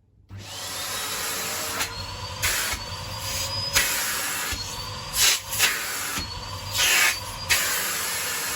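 Numatic TEM390a tradeline vacuum extractor switched on, its single-fan motor starting up with a whine that climbs in pitch, then running with a steady rush of air broken by several brief louder surges. The whine begins to fall away near the end.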